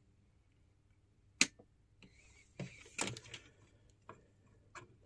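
A sharp click about a second and a half in as the pinball CPU board's power is switched back on to reboot it, then a few softer clicks and taps as a logic probe's tip is set on the chip pins.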